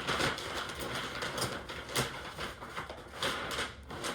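Plastic packaging being handled and unwrapped: an irregular, continuous crinkling rustle with many sharp crackles.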